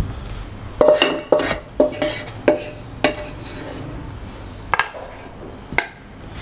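A wooden spatula pressing thick besan halwa into a glass bowl, knocking against the bowl about five times in the first three seconds, each knock with a short ring. Two sharper clicks follow later on.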